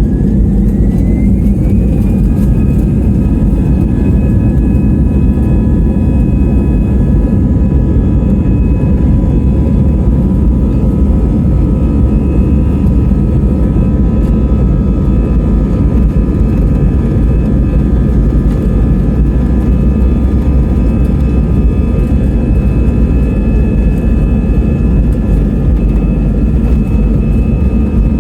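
Jet airliner engines heard from inside the cabin: loud, steady low rumble with a whine that rises over the first two seconds, then holds steady as the engines spool up.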